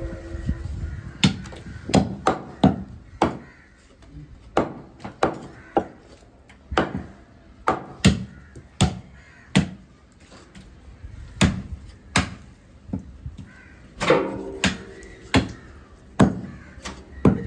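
Butcher's cleaver chopping beef on a wooden tree-trunk chopping block: sharp, irregular chops, about one or two a second, with brief pauses between runs of strokes.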